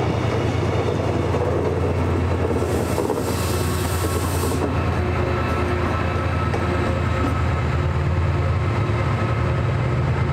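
A TransPennine Express Class 68 diesel locomotive running past with its coaches: a steady low engine drone under the rumble of the train. A burst of hiss comes from about two and a half to four and a half seconds in.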